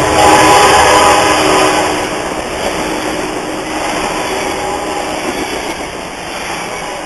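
Amtrak Surfliner bilevel passenger cars rolling past at close range, wheels running on the rails, the noise fading steadily as the train moves on.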